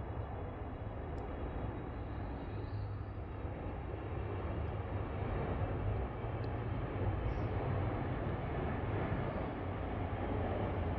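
Steady outdoor background rumble, heaviest in the low end and slowly growing a little louder, with a few faint high ticks.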